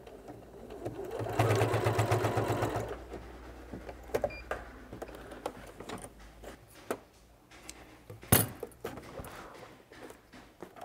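Pfaff Passport 2.0 sewing machine stitching through layers of denim in one short, fast, even run of about two seconds, starting about a second in. Scattered clicks and taps follow as the work is handled, with one sharp click near the end.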